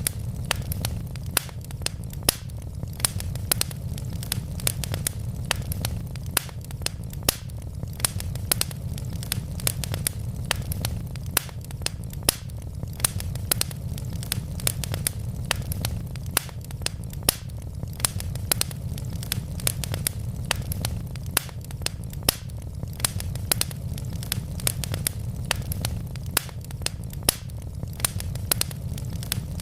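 Wood logs burning in a fireplace, crackling with frequent sharp pops over a low, steady rumble of the flames.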